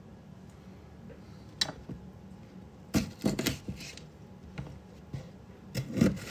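Kitchen knife cutting a red sweet pepper on a plastic cutting board: sharp knocks of the blade against the board, a quick run of them about three seconds in and the loudest near the end.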